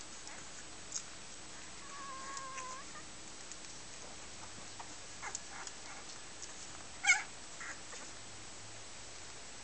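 Newborn Dalmatian puppies squeaking while they nurse: a faint, thin, drawn-out squeak about two seconds in and a short, sharper squeal about seven seconds in, with scattered small clicks between.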